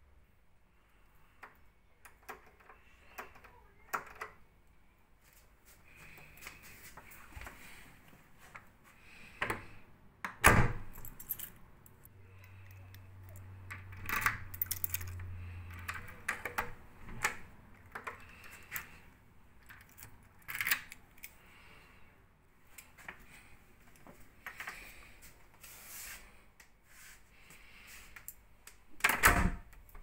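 Keys jangling and clicking as a key works the brass cylinder of a night latch, with scattered clicks and knocks from the lock and door, two of them much louder, about ten seconds in and near the end.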